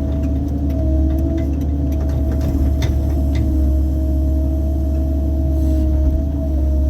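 CAT 308 mini excavator's diesel engine running steadily under digging load, with a constant whine above the engine note and scattered light clicks and knocks.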